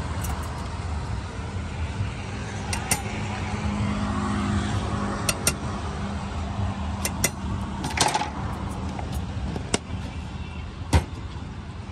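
Steady low rumble of a vehicle engine running nearby, a little stronger a few seconds in. Over it come a dozen or so light clicks and taps of a salt shaker and utensils against a steel bowl as avocado mash is seasoned.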